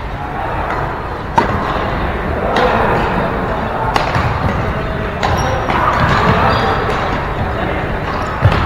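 Badminton rackets striking a shuttlecock in a rally, a sharp crack every second or so, over the echoing hum of a large sports hall with background voices.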